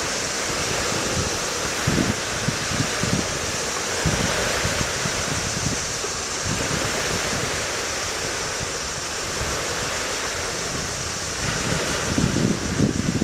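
Wind on the microphone: uneven low buffeting gusts over a steady rushing hiss.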